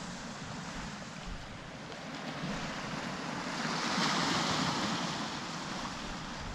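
Sea surf breaking and washing on the beach in strong onshore wind, the wash swelling louder about four seconds in.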